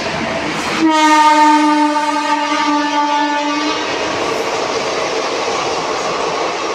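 Indian Railways WAP7 electric locomotive sounding its horn: one steady note of about three seconds, starting about a second in. The loud running noise and wheel clatter of the passing locomotive and coaches continue under it and after it.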